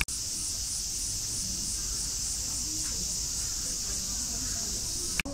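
Steady, high-pitched chorus of insects pulsing about three times a second, over faint crowd chatter.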